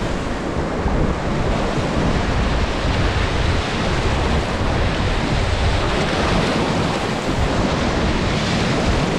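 Whitewater rapid rushing loudly and steadily around a paddling raft, with heavy wind buffeting on the microphone.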